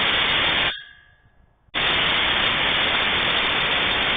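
Two long blasts from rebuilt air horns fed from an air tank at low pressure, heard as a loud, even rush with no clear pitch. The first blast cuts off under a second in, and the second starts about a second later and carries on.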